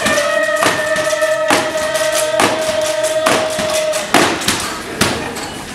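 Music with a steady beat, about one beat a second, and a long held note that stops about four seconds in.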